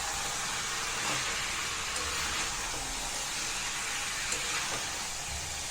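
Cabbage, potatoes and peas sizzling in oil and ground spice paste in a kadai: a steady hiss with a few faint ticks.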